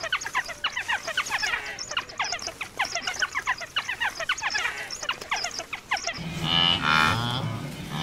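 African wild dogs twittering: rapid, high-pitched falling chirps, many a second, for about six seconds. Then a low, drawn-out moo-like grunting from wildebeest takes over near the end.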